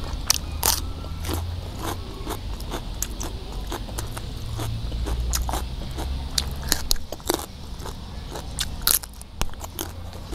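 Crisp crunching and chewing of raw green vegetables, eaten close to the microphone. A bite into a firm green piece comes first, then more sharp crunches as small pea eggplants are picked off their stem and eaten.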